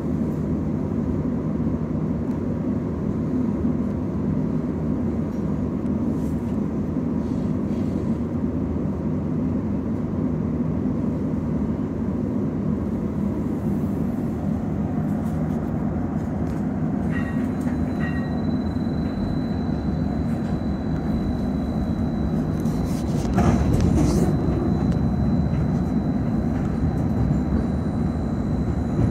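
Inside a 2015 Inekon 121 Trio streetcar: a steady hum while the car stands, two short chimes about 17 seconds in, then a thin high whine comes in, and the running noise grows louder from about 23 seconds in as the car pulls away along the rails.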